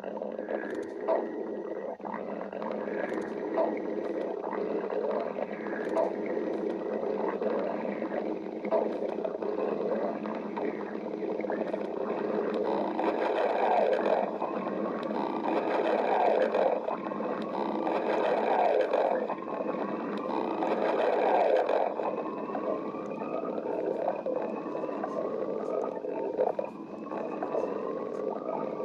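A stomach growling: a long, continuous rumble full of small pops, louder in the middle stretch, with a series of short rising whine-like glides in the later part.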